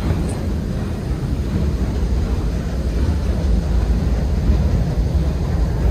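Paddle steamer's 1901 Sulzer 650-horsepower steam engine running, heard as a steady low rumble.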